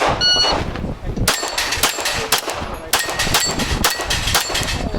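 Electronic shot timer beeps once, then about a second later a Glock pistol fires a rapid string of shots, about three a second, to start the stage.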